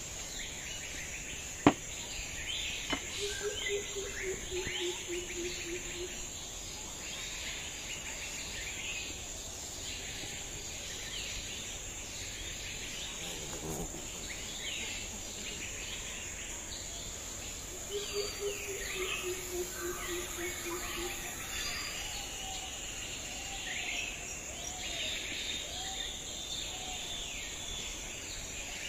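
Rural outdoor ambience: insects with a steady high whine and birds chirping throughout. Twice, a low hooting call of about a dozen evenly spaced notes falling slightly in pitch, and one sharp knock about two seconds in.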